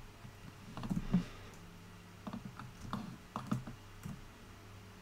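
Computer keyboard keys and mouse buttons clicking: several short, irregular taps, with a faint steady low hum beneath.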